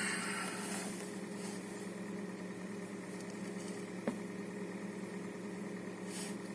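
Hyundai Solaris 1.4-litre four-cylinder petrol engine idling steadily while it warms up after a cold start. The owner says a little tapping and a loud noise on a cold engine are normal for these engines, which have no hydraulic lifters. One short sharp click comes about four seconds in.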